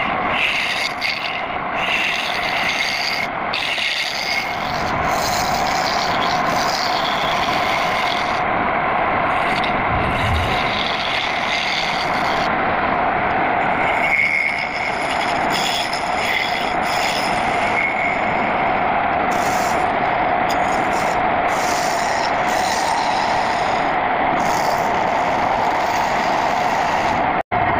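Turning chisel cutting into a wooden bowl spinning on a homemade belt-driven wood lathe: a continuous rasping scrape of the tool on the wood with a steady tone running under it.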